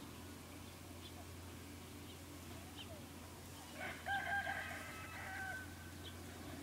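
A rooster crowing once, about four seconds in: a broken start then a held final note, lasting under two seconds. Small birds chirp briefly here and there.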